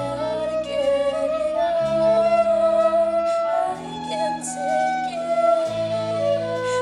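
Live band playing a song: a held lead melody over sustained low bass notes that change about every two seconds.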